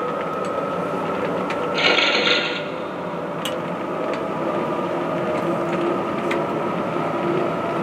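O-gauge three-rail model train rolling past on its track: a steady rumble of wheels and motor with a few faint clicks, and a brief louder burst of hiss-like noise about two seconds in.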